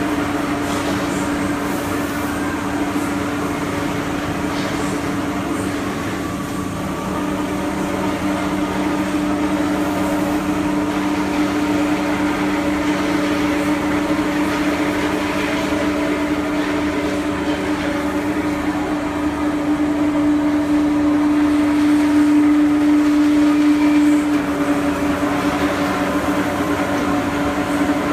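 Pillow filling machine running with a steady mechanical hum and whir. It gets a little louder about twenty seconds in, then drops back a few seconds later.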